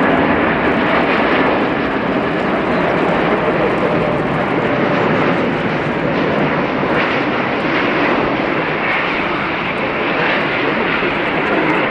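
Heavy jet airliner coming in to land, its engines making loud, steady jet noise.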